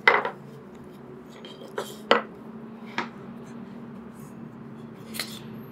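Small wooden pieces and a plastic glue bottle being handled, set down and knocked against a plywood workbench: about five sharp knocks and clacks, the loudest just after the start and about two seconds in. A steady low hum runs underneath.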